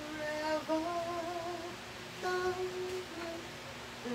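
A woman humming a slow tune in held notes, with a short break about halfway through.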